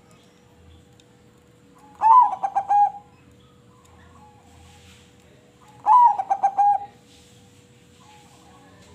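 A crossbred zebra dove (perkutut) singing its cooing song twice, about four seconds apart. Each phrase lasts about a second: a rising opening note followed by a quick run of short notes.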